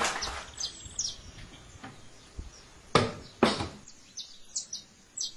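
Birds chirping in short high calls, with two sharp knocks about three seconds in, half a second apart.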